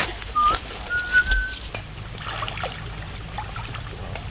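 A few short, steady whistled notes over light crackling of steps through grass, giving way after about a second and a half to faint trickling and splashing water.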